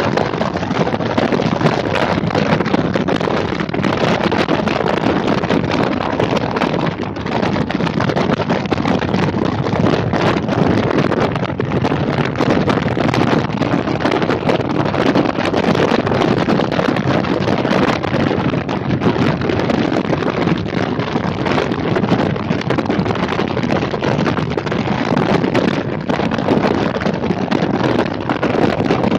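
Steady wind rushing over the microphone of a motorcycle riding at road speed, with the bike's engine and road noise blended underneath.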